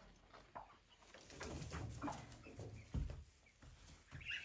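Faint rustling of straw and cardboard as a turkey hen shifts and settles onto her eggs in a box nest, with a soft knock about three seconds in.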